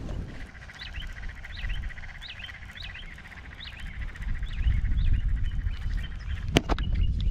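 A bird calling over and over, a short dipping call roughly once a second, over low wind rumble on the microphone and a steady high buzz. One sharp click near the end.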